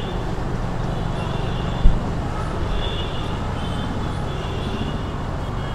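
Motorcycle engine running steadily while riding in city traffic, heard from the handlebar-mounted camera along with road and wind noise. There is a brief thump a little under two seconds in.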